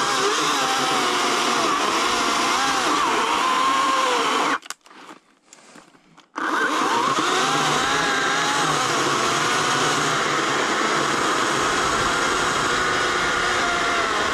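Ryobi cordless electric chainsaw cutting into a tree limb, its motor whine wavering up and down in pitch as the chain bites into the wood. It stops for about a second and a half about four and a half seconds in, then runs again.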